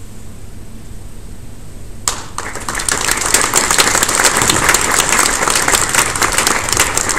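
An audience starts applauding about two seconds in, many people clapping at once, after a quiet stretch with only a low hum.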